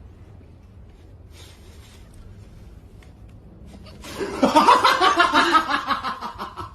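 A person bursting into loud laughter about four seconds in, in rapid repeated bursts, after a few seconds of faint background hum.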